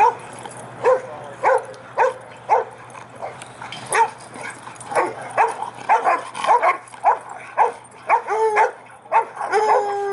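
Dogs barking in rough play, short sharp barks about one or two a second that come faster toward the end. Near the end come a few longer drawn-out calls.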